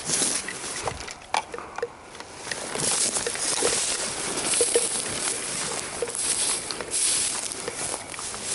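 Dry grass and weed stems rustling against clothing and the camera as someone pushes through brush on foot. The hiss swells and fades several times, with many small snaps.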